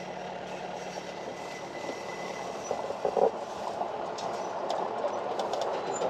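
Farm four-wheel drive heard from inside the cab, its engine running and tyres rolling slowly over a dirt track, with a steady rumble. There are a few rattles and clicks about three seconds in and again a little later.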